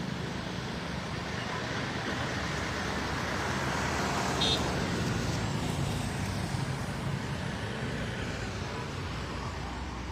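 Road traffic: steady engine hum and tyre noise from passing vehicles, with one brief high-pitched beep about four and a half seconds in.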